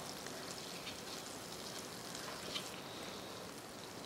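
Margarine melting in a stainless steel pot, sizzling faintly and steadily.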